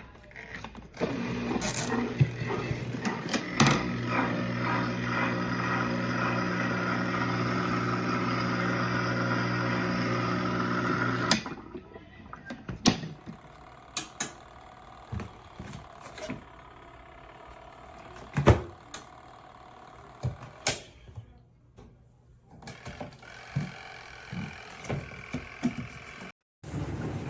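Portable washing machine's electric motor running with a steady hum, cutting off abruptly about eleven seconds in. After it stops come scattered knocks, clicks and rattles of the machine being handled.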